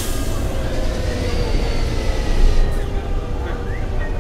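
Inside an MCW Metrobus double-decker on the move: engine and running-gear rumble with rattles, and a drivetrain whine that rises in pitch twice as the bus picks up speed. A sudden hiss sets in at the start and fades away after about two and a half seconds.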